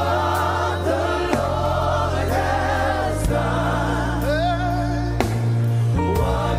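Gospel worship music: a choir singing over sustained low chords, with a few drum hits.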